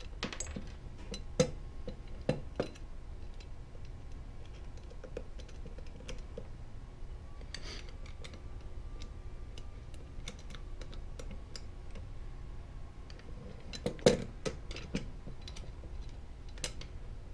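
Scattered small clicks and light knocks of bonnet cap screws being fitted and turned by hand into a BelGAS P300 gas pressure regulator as the unit is handled on a workbench. A few louder knocks stand out, the loudest about 14 seconds in.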